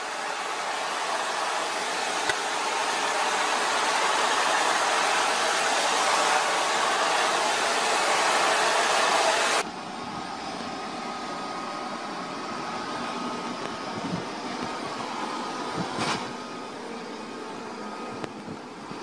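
Vacuum cleaner running steadily with a loud hiss of suction as its brush nozzle is drawn over a cat. About ten seconds in, the sound changes abruptly to a quieter cordless handheld vacuum running, with a faint steady motor whine.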